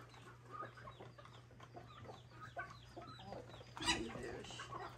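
Domestic hens clucking, many short calls one after another, with a sharp knock about four seconds in.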